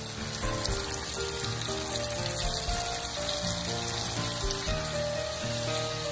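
Squid frying in a pan of hot oil and tamarind water, a steady sizzle with fine crackling, over background music with a stepping melody.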